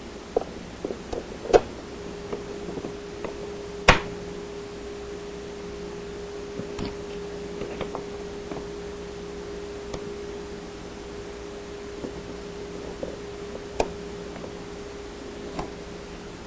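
Scattered clicks and small knocks of hand tools working hose clamps off a dishwasher's motor and pump assembly, with one sharp click about four seconds in, over a steady hum that sets in under two seconds in.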